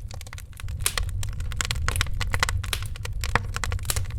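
Wood fire in a fireplace crackling: frequent irregular sharp pops and snaps over a steady low rumble, growing a little louder about a second in.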